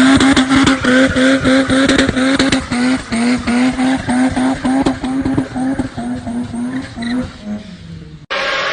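Mazda RX-7's two-rotor rotary engine held at high, steady revs, its exhaust crackling and chopping, slowly fading with the pitch dropping near the end. Just before the end it cuts off sharply and another steady engine sound starts.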